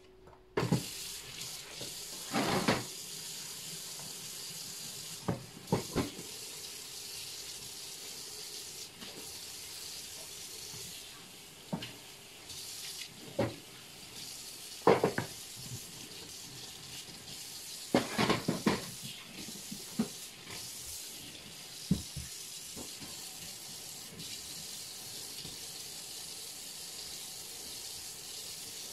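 Kitchen tap running steadily into a stainless steel sink while dishes are rinsed under it, with a few short knocks and clatters as a wooden cutting board and a pot lid are handled against the sink.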